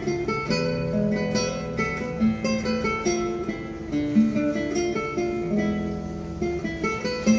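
Acoustic guitar playing a plucked accompaniment: a steady run of picked notes and chords, each note ringing and dying away.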